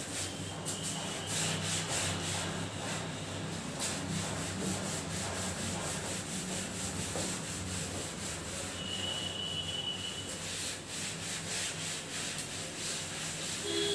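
A cloth rubbing chalk off a blackboard: continuous scrubbing in repeated strokes.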